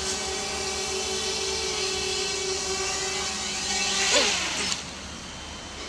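Sharp 250 racing quadcopter's brushless motors and propellers buzzing steadily as it hovers low and sets down to land. The sound swells briefly about four seconds in, then cuts off just before five seconds as the motors stop after touchdown.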